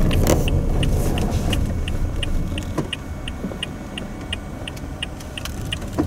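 Car cabin road noise, a steady low rumble, with the turn-signal indicator ticking evenly about three times a second.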